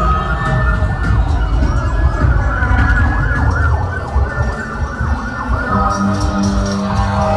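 Siren sound effect wailing, its pitch wavering up and down over a loud low rumble. A steady low droning tone joins about six seconds in.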